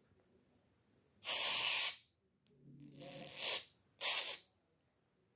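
Aerosol Holi colour spray can hissing in three short blasts: the first and strongest about a second in, lasting under a second, then a weaker one and a brief last puff.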